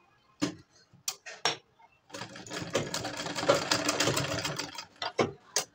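Domestic straight-stitch sewing machine stitching through fabric. A few separate clicks come first, then the machine runs for about three seconds with a rapid needle clatter, stops, and two more clicks follow.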